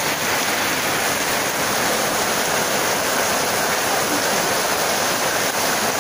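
Torrential rain pouring onto corrugated tin roofs and flooded ground, a dense, steady hiss.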